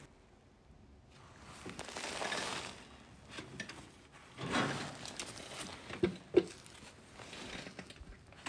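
Faint rustling and shuffling from someone settling on a tractor seat before starting it, with two short sharp clicks a little past six seconds in.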